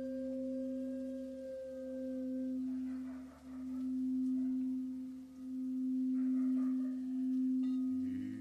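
Crystal singing bowl ringing a steady, pure tone that swells and fades slowly in a regular pulse. Over it an end-blown bamboo flute holds a note that stops about two and a half seconds in, and a low hum begins near the end.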